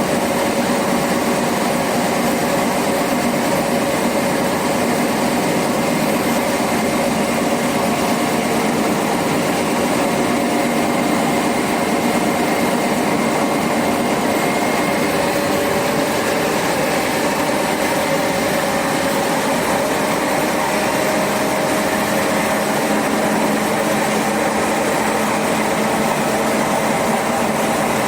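The motor of train 446 running, heard from inside the carriage: a steady hum made of several held tones with a faint high whine above it, over a rumble of running noise.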